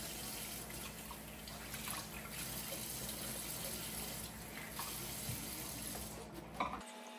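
Kitchen faucet running water into a stainless steel sink as dishes are rinsed under it, with a few faint clinks of dishes. The water stops shortly before the end.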